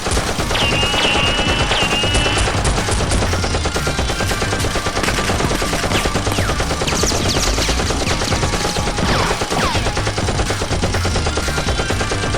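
Continuous rapid automatic gunfire, the video-game-style gun sound effects laid over a Nerf blaster shootout.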